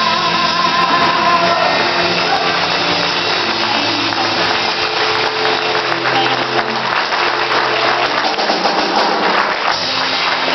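Live band and a woman singer closing a gospel song, the voice and instruments holding the final notes, with audience applause swelling in over the last couple of seconds.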